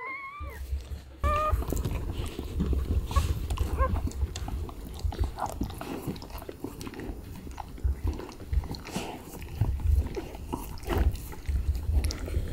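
A newborn Siberian husky puppy gives two short, high squeaks, the first one rising. Then come wet suckling and mouth noises, irregular soft thumps and clicks, as it roots and nurses at its mother's belly.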